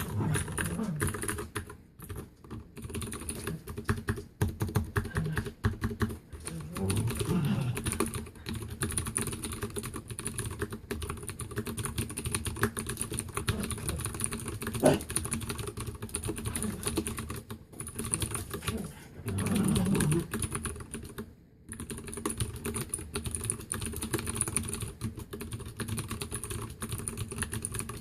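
Leopold FC750R mechanical keyboard with blue (clicky) switches being typed on: a fast, continuous stream of sharp keystroke clicks, with brief pauses about 2 seconds in and again near 21 seconds.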